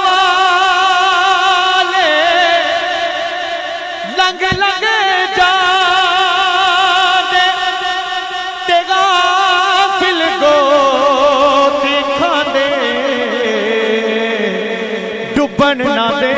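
A man's voice singing an unaccompanied naat, drawn out into long held melismatic notes with wide vibrato through a microphone, broken briefly twice; the pitch steps down over the last few seconds.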